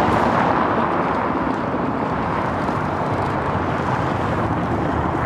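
Cars driving past on a cobblestone street: a steady rush of tyre and engine noise.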